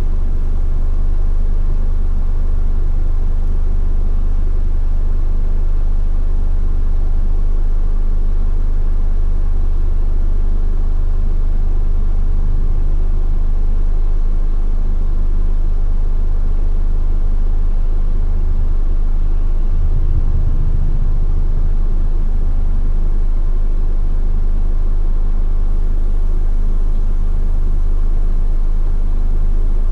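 Steady low rumble of a car driving: engine and road noise heard from inside the moving car.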